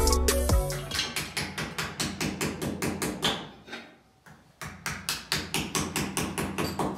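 Quick, even hammer taps, about five a second, with a short pause about four seconds in.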